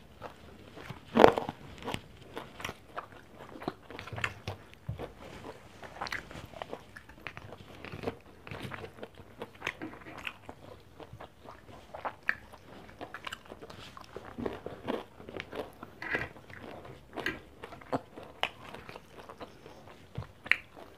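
Close-up eating sounds of a person chewing mouthfuls of rice and adobo string beans eaten by hand: irregular wet mouth clicks and soft crunches, with one louder crunch about a second in.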